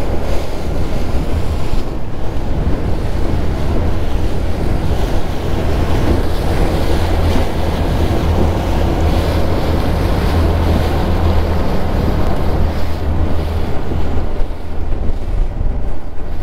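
Wind buffeting the microphone over the rush and splash of water along the hull of an electric RIB running at speed through a light chop. The electric motor itself is not heard.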